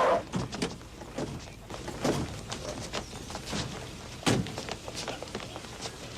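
Scattered, irregular knocks and clicks, with a louder knock about two seconds in and the loudest just past four seconds.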